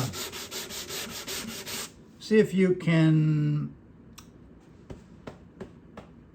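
Sandpaper being worked over a cedar guitar top in quick, even back-and-forth strokes, stopping about two seconds in. A short burst of voice follows, then a few light clicks.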